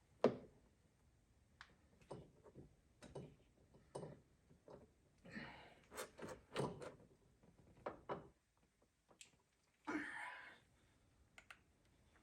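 Faint handling sounds from a spark plug wire and its boot being worked over a greased terminal: a string of light clicks and knocks, the sharpest just after the start, with short rubbing swishes about halfway through and again near the end.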